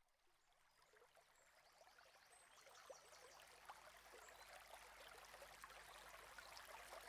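Faint trickling, splashing water fading in slowly from silence, full of small drips and splashes.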